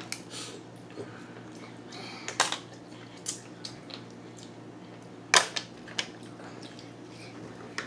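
Close-up eating sounds: open-mouthed chewing with wet smacks and about half a dozen sharp clicks, the loudest about two and a half and five and a half seconds in.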